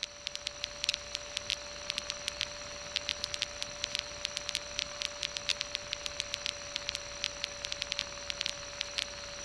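Aircraft intercom or radio audio feed between transmissions: a low hiss with a steady humming tone and irregular crackling clicks of static.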